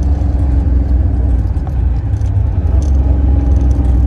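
1968 Camaro's engine running steadily through its chambered exhaust, a deep drone heard from inside the car, with a light jangling rattle of loose items in the ashtray.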